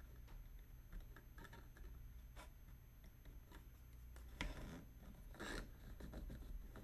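Faint scattered clicks and taps from handling small model parts, with a sharper click about four and a half seconds in and a brief rustle a second later.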